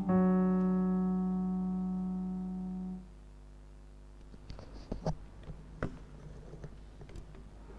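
A held electric-piano chord fades slowly and cuts off about three seconds in. Then come a few soft clicks and knocks as a clip-on microphone is handled.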